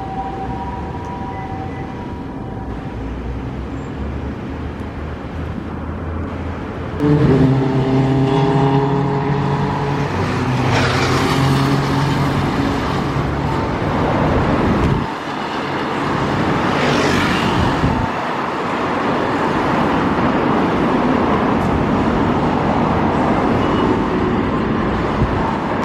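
Road traffic noise. A vehicle engine runs close by with a steady low hum for about eight seconds, starting about seven seconds in, and two vehicles pass with a whoosh that swells and fades, around eleven and seventeen seconds in.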